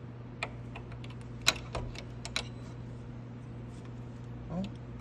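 A few sharp metal clicks and clinks as the ATV's front shock spring and its mounting hardware are handled and lined up on the A-arm mount, the loudest about a second and a half in, over a steady low hum.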